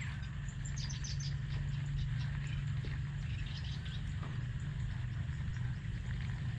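Outdoor pond-side ambience: short bird chirps about a second in and again near the four-second mark, over a steady insect drone and a steady low hum.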